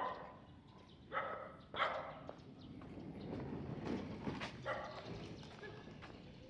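A dog barking: two barks close together a little over a second in, then another about five seconds in.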